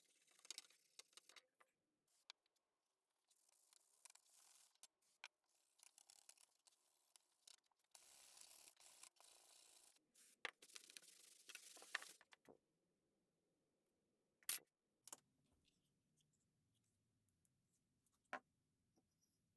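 Faint, intermittent rubbing of an abrasive on a rusted steel sickle blade. About eight seconds in, an aerosol can of WD-40 hisses in one longer spray and then several short ones onto the blade. Two sharp knocks follow later.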